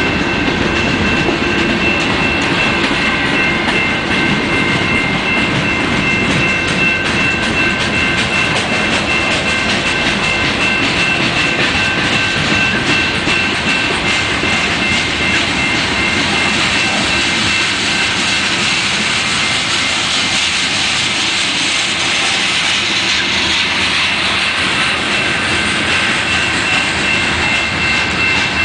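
Freight train cars rolling past at a grade crossing, wheels clattering steadily over the rail joints. A crossing bell rings continuously over the rumble, a steady high, pulsing ring.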